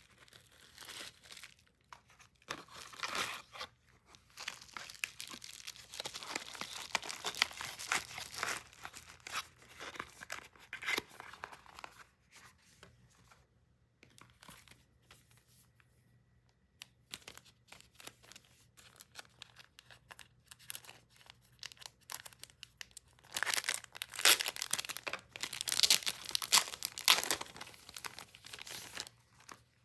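Packaging being torn open and crinkled by hand, in two long bouts with a quieter pause in between; the tearing is loudest in the second bout near the end.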